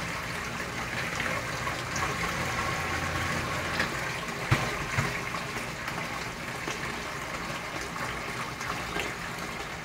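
Sump pump running, with water rushing and splashing steadily over a faint low hum. A couple of light knocks about four and a half and five seconds in.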